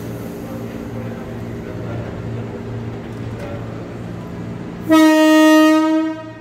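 KRL commuter electric train's horn sounding one steady blast of about a second and a quarter, just after its doors have closed, as it signals departure. Before it a steady low hum.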